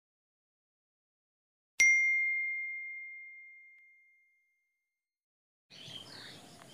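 A single clear bell-like ding, struck once about two seconds in and ringing out to silence over about two seconds. Near the end, outdoor ambience with faint bird chirps comes in.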